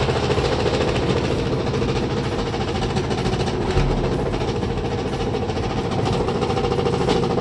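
Old top-loading washing machine on its spin cycle: the motor hums steadily while the shaking drum knocks and rattles loudly, a sign of worn suspension rods.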